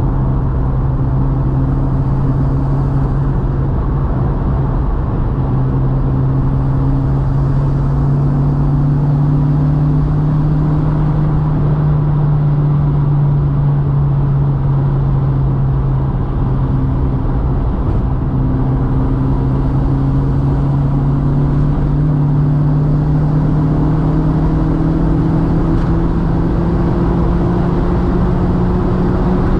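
Mk2 Volkswagen's 1.8-litre turbo four-cylinder engine pulling steadily on the road. Its pitch holds fairly even with a few small shifts, then climbs slowly over the last dozen seconds.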